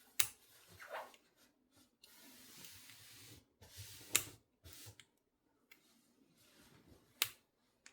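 Steel handcuffs being picked: small metallic clicks and ticks of a pick and the cuff's lock parts, with three sharper clicks spread through and a longer scraping rub about two seconds in.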